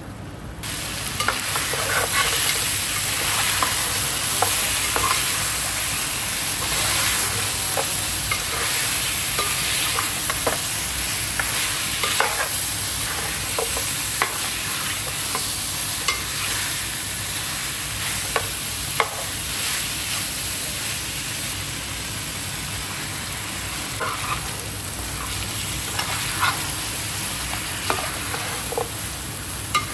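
Mutton korma frying in hot oil in a pot, sizzling steadily, with a spoon scraping and clinking against the pot now and then as it is stirred. The sizzle rises sharply just under a second in.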